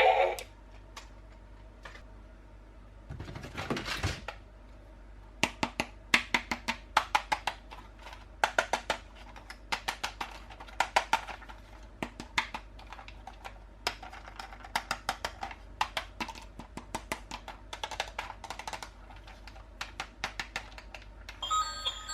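Handling of toy packaging during an unboxing: a brief rustle, then a long, irregular run of sharp clicks and taps.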